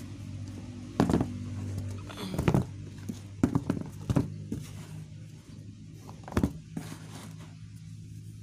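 Canvas sneakers with rubber soles handled and set down on a cardboard box: several knocks and scuffs against the cardboard, with a steady low hum underneath.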